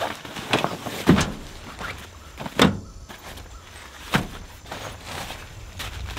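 Packed camping gear being pulled out and set down on a pickup truck's bed: a series of thuds and rustles, the loudest about a second in and again at about two and a half seconds.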